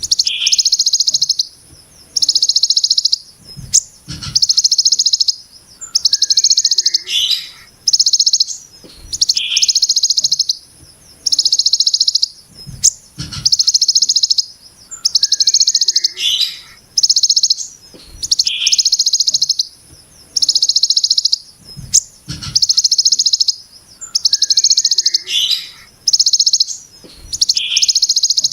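Kolibri ninja (sunbird) singing 'brem ciblek gunung' material: harsh, very rapid buzzy trills, each about a second long, repeated roughly every two seconds, with short lower notes between some of them. A few soft low thumps come in here and there.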